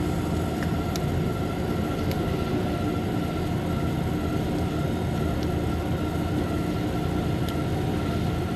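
Steady drone of milking-robot room machinery, a constant hum with a higher whine over it, with a few faint ticks.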